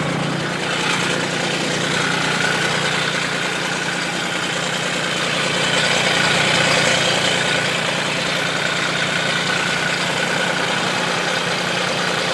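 Kubota zero-turn mower's diesel engine running steadily.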